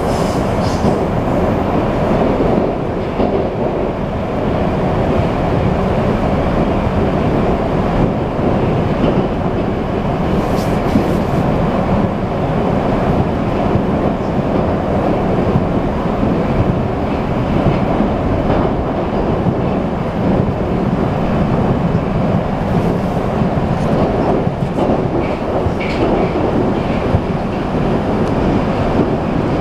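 Moscow metro 81-775/776/777 (Moskva-2020) train running between stations, heard from inside the car: steady running noise of wheels on rail, strongest at low pitch.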